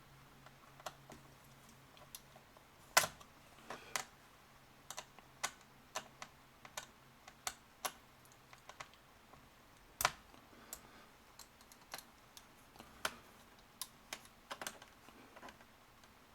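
Irregular sharp plastic clicks and taps from a laptop's bottom cover being pried up at its snap tabs, with the loudest snaps about 3 and 10 seconds in.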